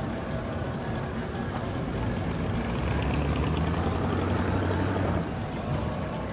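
Car engine running with a low, steady note as a car rolls slowly past; it grows louder about two and a half seconds in and drops away after about five seconds.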